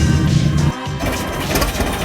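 Background music cuts off abruptly under a second in. A tractor engine follows, running steadily.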